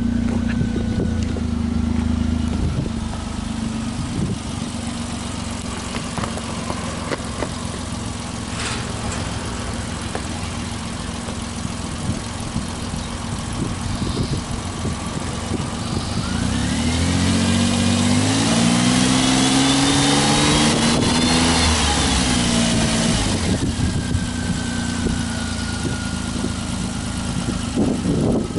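Suzuki Alto Works RS/Z's 660 cc turbocharged three-cylinder engine idling, then revved up for several seconds a little past halfway, with a whine climbing along with the revs, before it drops back to idle.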